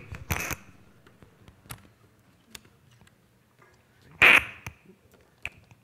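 Handling noise at a lectern: sparse clicks and light knocks as a laptop and its cables are handled, with one louder, short clunk about four seconds in, over a faint steady electrical hum.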